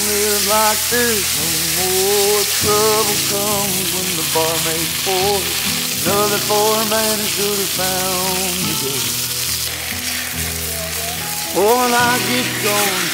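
Beef steaks searing in a cast-iron skillet over an open fire, sizzling steadily. A melody of background music plays over it.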